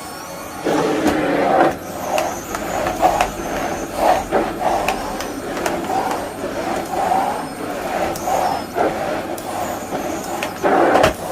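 Bosch Serie 2 bagless vacuum cleaner running, its suction noise surging and easing unevenly as the nozzle is worked over the floor, with small clicks and knocks along the way.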